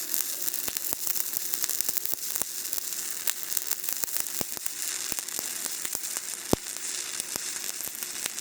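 Stick welding with a 1/8-inch 7018 electrode: the arc crackles and sizzles steadily, with sharp pops, the loudest about six and a half seconds in.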